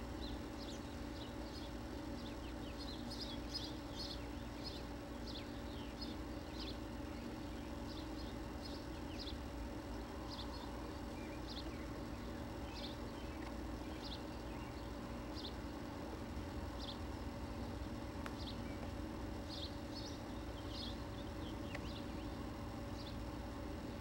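Small birds chirping, a steady scatter of short high chirps, over a steady low hum.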